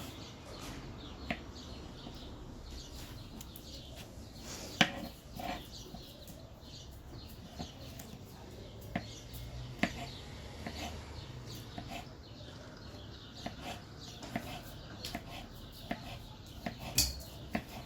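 Folding knife chopping garlic: the blade knocks on the cutting board now and then, single irregular taps with pauses between, the sharpest about five seconds in.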